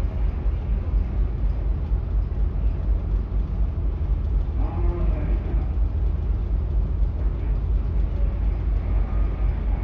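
Steady low rumble aboard a ship underway, with wind buffeting the microphone. A brief voice cuts in about halfway through.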